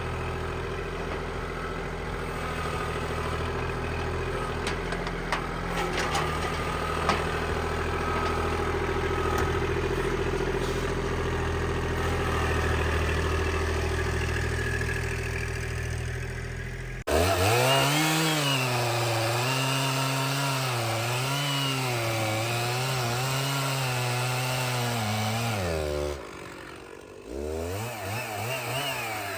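A tractor engine running steadily, then, after an abrupt change, an engine whose speed rises and falls over and over in uneven swells, dropping away briefly near the end and then picking up again.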